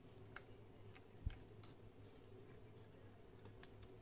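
Faint clicks and taps of fingers handling a clear plastic action-camera waterproof housing, with one soft knock about a second in.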